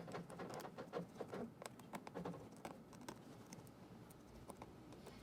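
Faint, irregular light clicks and scrapes of small tools working on a smartphone's internal cover as it is taken off.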